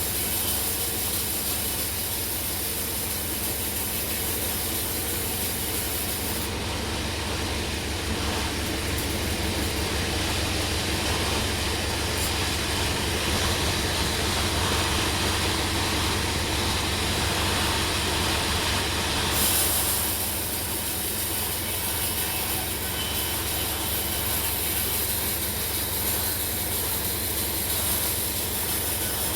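Sawmill running as its blade cuts along a log: a steady low motor hum under a continuous sawing noise that gets a little louder in the middle.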